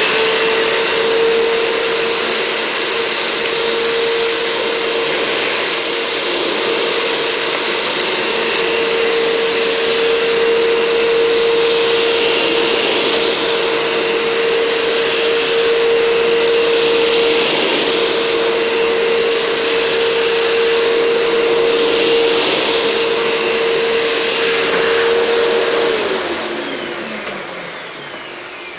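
Eureka Bagless Maxima upright vacuum cleaner running steadily with a constant motor whine, pushed over the floor for several passes picking up rice. About 26 seconds in it is switched off and the motor winds down, its pitch falling.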